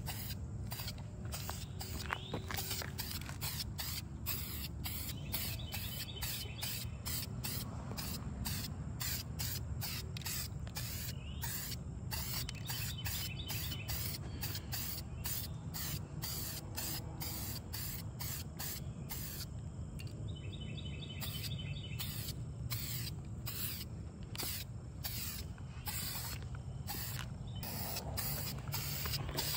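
Aerosol spray-paint can sprayed in many short bursts, the nozzle pressed and released over and over, roughly one to two hisses a second, over a steady low background hum.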